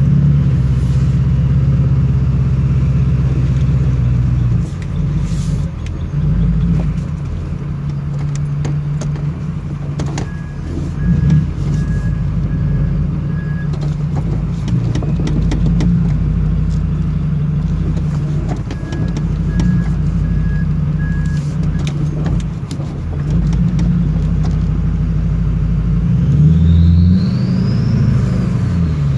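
Duramax V8 turbodiesel pickup running under way, its engine note rising and falling with the throttle. Near the end the single turbo whistles, rising as it spools up and falling back off the throttle. A short run of beeps sounds twice in the middle.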